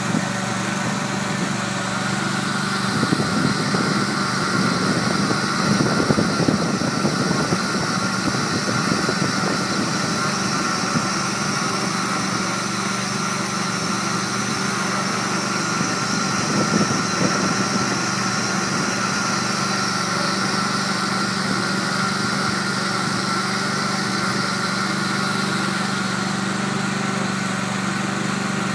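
Small engine of the cable-installation equipment running steadily at one speed. It gets louder and rougher from about three to eleven seconds in, and briefly again near seventeen seconds.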